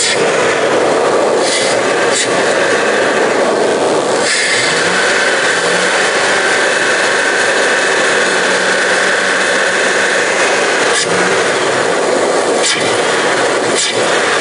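Throttle-body-injected Dodge van engine running with its air filter removed while water is sprayed into the open throttle body to burn off carbon, with short hisses from the spray bottle. The engine speeds up about four seconds in, holds a higher steady pitch, and drops back near eleven seconds. It runs smoothly under the water treatment.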